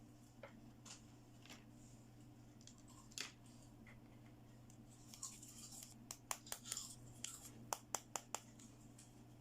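Soft clicks and taps of small toy pieces being handled, a few scattered at first, then a quick run of sharper clicks with some rustling about six to eight seconds in, over a low steady hum.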